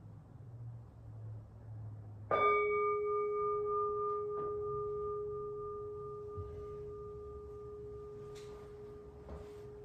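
Temple bowl bell struck once about two seconds in, ringing on with a steady low tone and a higher overtone that fade slowly.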